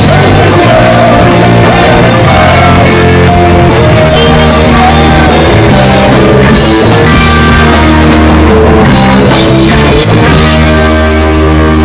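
Live rock band playing loudly, with electric guitar and bass guitar over a driving beat.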